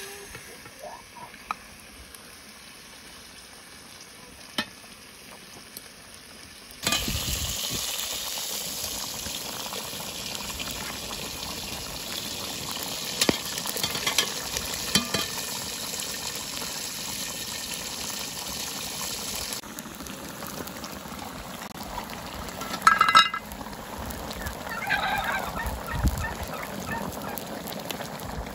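Chicken and eggplant stew boiling hard and sizzling in an open pan over a wood fire: a loud, steady hiss that begins suddenly about a quarter of the way in and drops back after about twelve seconds. Before it there are a few light clicks of a ladle against a pot, and near the end there is one brief, loud call.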